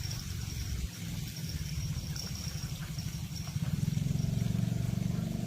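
A small engine running with a low pulsing hum, growing louder about three and a half seconds in.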